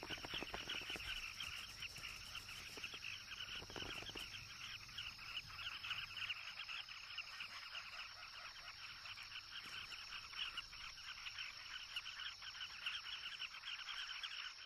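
A colony of southern carmine bee-eaters calling at their ground nest burrows: a dense, continuous chatter of many short calls over a steady high whine.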